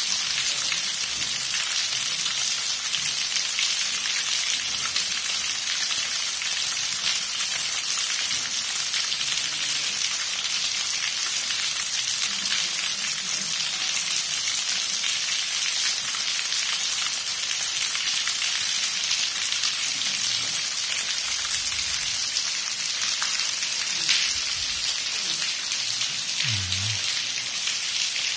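Water dripping and trickling from a cave ceiling onto wet rock: a dense, steady patter of many drops, like rain, with one sharper, louder drop near the end.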